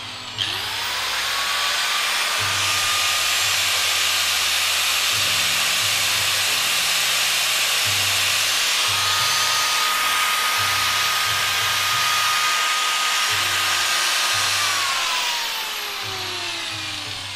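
Hitachi 100 mm angle grinder switched on about half a second in, spinning up to a steady high whine and running free at full speed, its motor rated 12,000 rpm. Near the end it is switched off and winds down, its pitch falling.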